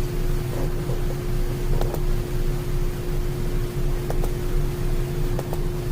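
Steady low background hum with a constant tone over an even hiss, broken by a few faint ticks.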